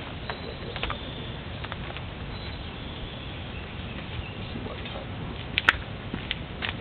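Scattered light clicks and taps of parts and tools being handled under a car's hood, with one sharper click about five and a half seconds in, over a steady low background hiss.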